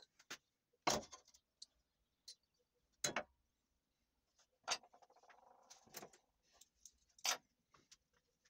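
Steel punch and long nails being set down on wooden planks: about five sharp knocks and clinks, spaced a second or two apart.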